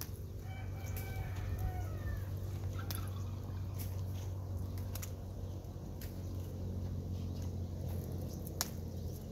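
A chicken calls once, starting about half a second in and lasting under two seconds. Scattered light clicks and a steady low hum run underneath.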